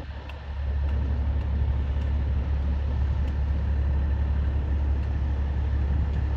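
Engine of heavy construction equipment running steadily with a low rumble that grows louder about half a second in.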